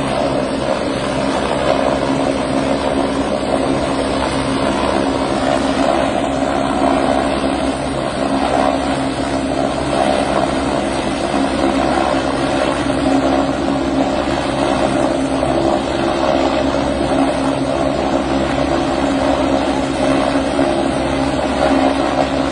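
Fire brigade rescue helicopter running loud and steady, its rotor and engine giving a constant drone with several held pitches.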